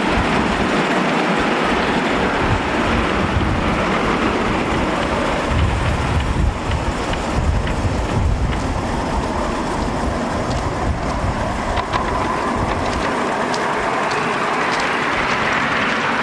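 Miniature ride-on steam locomotive running past on the track, its low rumble loudest about halfway through as it comes close, with light clicks from the wheels on the rails in the second half.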